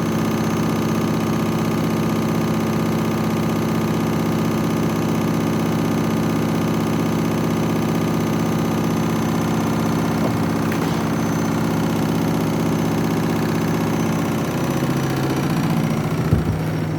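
Washing machine on its final spin with an unbalanced load of two bathrobes, the drum and motor running with a steady hum. About 15 seconds in the pitch steps down as the spin slows, with a single knock shortly after.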